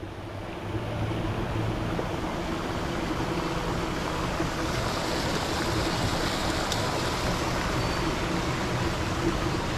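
Steady churning and splashing of pond water from an aerator, with a low motor hum underneath. It swells in over the first second, then holds steady.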